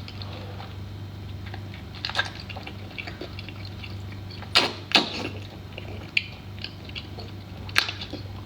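Close-miked eating sounds: wet chewing and mouth clicks, with a few sharper knocks scattered through, over a steady low hum.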